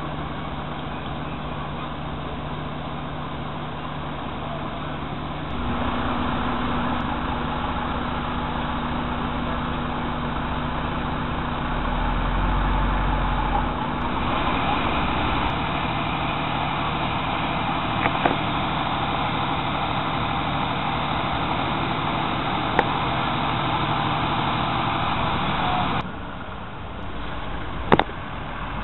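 Heavy vehicle diesel engines running steadily amid street traffic, the engine tone shifting a few times. A couple of sharp knocks stand out, one about two-thirds of the way through and a louder one near the end.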